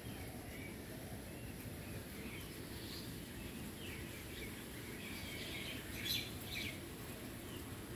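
Small birds chirping in short, quick calls, busiest and loudest about five to six and a half seconds in, over a steady low background rumble.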